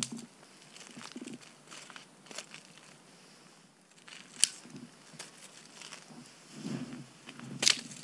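Twigs snapped off a snow-covered conifer by hand: a run of small dry cracks and crackles, with a sharp snap about four and a half seconds in and a louder one near the end.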